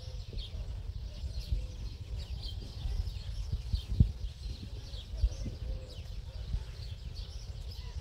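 Goldfinch chirping and twittering in short high notes scattered through, over a steady low rumble, with a thump about four seconds in.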